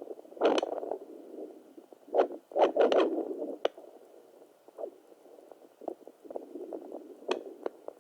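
Handheld fetal Doppler monitor's speaker output: an irregular pulsing whoosh, broken by loud scratchy crackles about half a second in, a burst of them between two and three seconds in, and a sharp one near the end.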